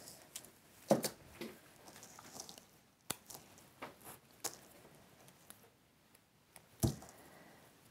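Scissors cutting through conifer and evergreen stems: several short, sharp cuts, the loudest about a second in and near the end, with the rustle of handled foliage between them.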